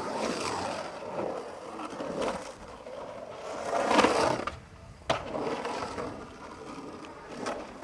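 Skateboard wheels rolling and carving across the walls of an empty swimming pool. The rolling swells about four seconds in, and a sharp clack comes about a second later.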